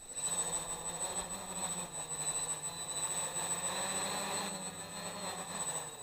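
Homemade 3D-printed quadcopter's motors and propellers whirring. It starts suddenly and runs steadily, with a high-pitched whine above the propeller noise.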